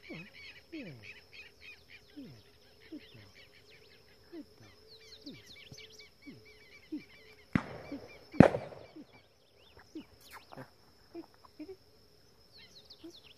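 Two shotgun shots a little under a second apart, about halfway through, the second louder. Behind them runs a steady high insect drone, with scattered bird chirps and short falling calls.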